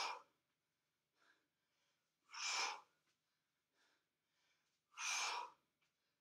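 A man's heavy breaths with exertion: three sharp breaths, about two and a half seconds apart, paced with repeated hip-bridge lifts.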